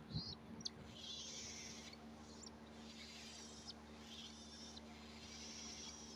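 Pet cockatiel making faint, scratchy high-pitched chatter in several short spells, with two small clicks in the first second and a steady low hum underneath.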